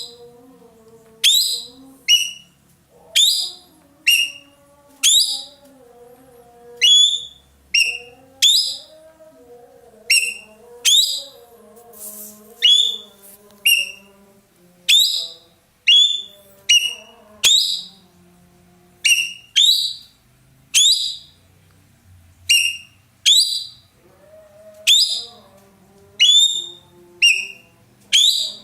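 Ekek keling calling in loud, sharp whistled notes, about one a second and often in pairs. Each note is a quick downward sweep that ends on a piercing high tone. This is the loud 'shooting' call (nembak) of a bird in full song.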